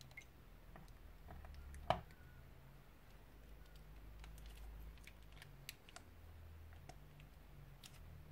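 Faint clicks and crinkles of a plastic piping bag being squeezed, pushing thick slime out of its cut tip into a glass bowl, with one sharper click about two seconds in, over a low steady hum.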